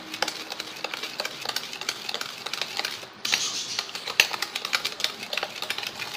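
A metal spoon beating ghee and powdered sugar in a bowl, creaming them together. It makes a fast, continuous run of clicks and scrapes against the bowl, with a brief break about three seconds in.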